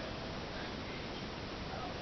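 Steady low hiss with no distinct event: room tone and recording noise, with no motor running.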